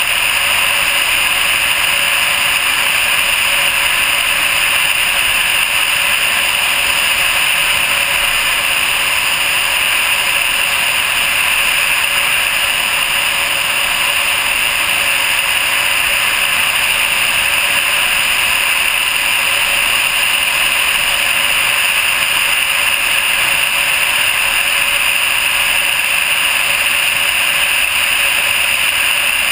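Steady rush of air over a GoPro mounted on the nose of a Vega glider in flight: a loud, even hiss with no engine note.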